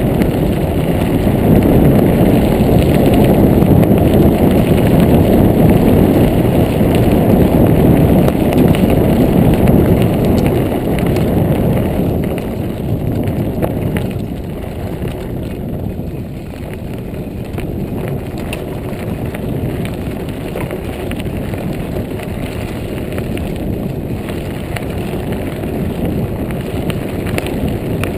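Montague Paratrooper Pro mountain bike ridden along a gravel trail: tyres rolling over the gravel, an occasional light rattle, and wind rushing over the microphone. The rush is loudest for the first ten seconds or so, then eases.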